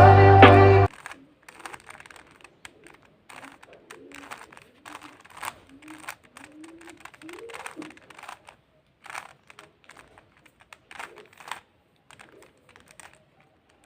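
Music cuts off about a second in, followed by a quick, irregular run of light plastic clicks and clacks from a Rubik's cube's layers being turned.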